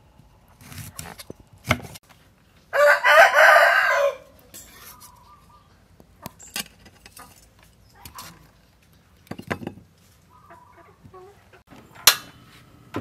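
A rooster crows once, loudly, about three seconds in, for roughly a second and a half. Around it come scattered light knocks and clicks of a knife on a wooden chopping board.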